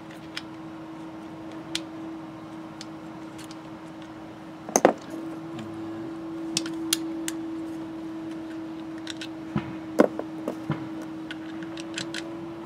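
Metal and plastic parts of a power window regulator being handled and fitted together: scattered light clicks and ticks, with louder knocks about five seconds and ten seconds in. A steady hum runs underneath.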